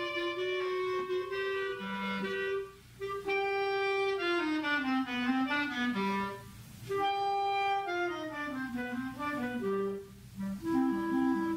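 Clarinet playing a melody in phrases, with short breaks for breath about every four seconds.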